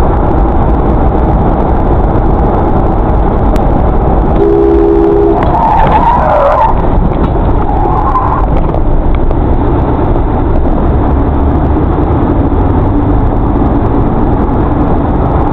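Steady road and engine noise inside a moving car, picked up by a dashcam. About four and a half seconds in there is a short steady two-note tone, followed by a brief wavering squeal.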